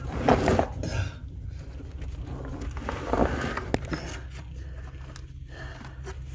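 A person moving inside an 18-inch concrete pipe, with scraping and shuffling against the concrete at the start and again about three seconds in, and a sharp click just before the four-second mark. A steady low hum runs underneath.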